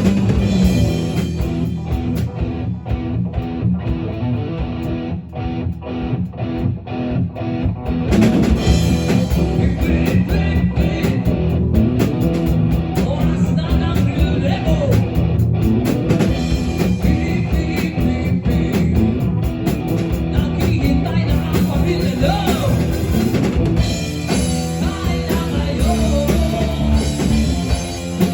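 Rock band music with drum kit and guitars. From about two to eight seconds in the sound thins out, then the full band comes back in.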